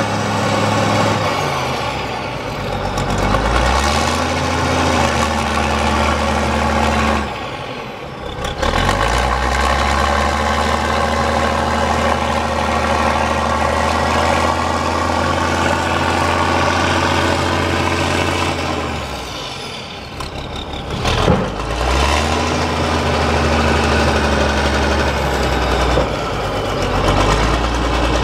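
Fiat-Allis 21C crawler dozer's diesel engine running, its speed dropping twice and picking back up as the machine shifts on its tracks. A sharp clank about two-thirds of the way through.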